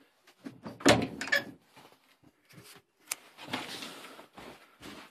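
A house door being opened: a heavy thump about a second in and a few knocks, a sharp click a couple of seconds later, then scuffing as someone steps through.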